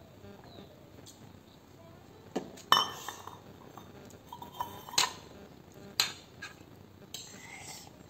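Steel tableware clinking: a steel tumbler and fork knocking against dishes in a few sharp, separate clinks, the loudest about three seconds in and others around five and six seconds.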